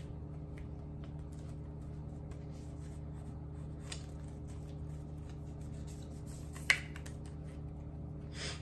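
Paper and thin card packaging being handled: soft rustles and light ticks as the white paper insert sleeve from an iPad box is turned and folded, over a steady low hum. One sharp click stands out about two-thirds of the way in.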